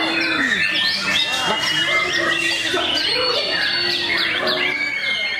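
White-rumped shamas singing, several birds at once in a dense run of overlapping whistles, sweeps and chattering notes.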